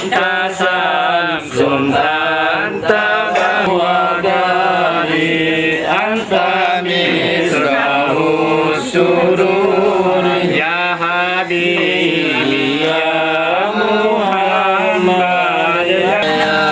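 Several voices chanting together in a sustained, wavering melody with gliding, ornamented pitch.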